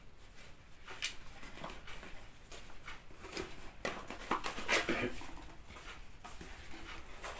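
Paper and cardboard handling: instruction leaflets and the camera box's cardboard packing rustling and crinkling in a run of short, uneven scrapes and crackles, busiest about halfway through.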